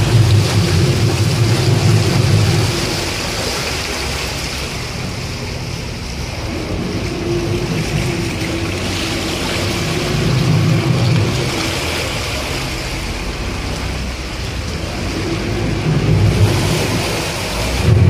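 Motorboat engine running at cruising speed with a steady hum, over the rush of water along the hull. A low rumble swells at the start, again about ten seconds in and near the end.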